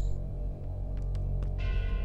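Soft background score music with sustained low notes; a set of steady, ringing higher tones comes in about a second and a half in.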